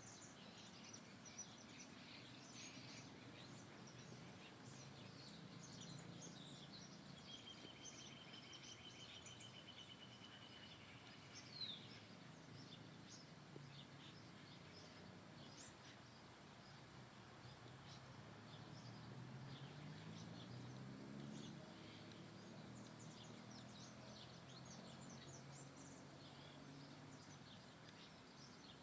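Faint chorus of many small birds chirping, with one bird giving an even trill for about three seconds and a sharp, down-slurred call just after it. A low hum joins in the second half.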